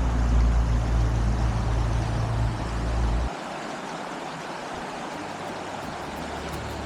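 Rushing water of a fast mountain stream, a steady hiss. For the first three seconds or so a heavy low rumble, like wind or handling on the microphone, sits over it and stops suddenly; a weaker rumble returns near the end.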